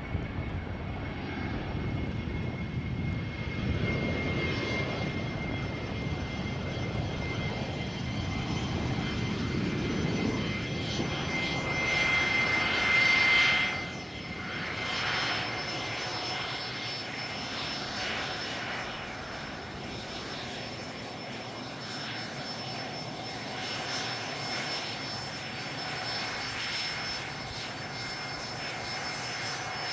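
Fixed-wing aircraft engine noise, steady with a thin whine over it. It grows loudest about twelve seconds in, then drops off sharply a couple of seconds later.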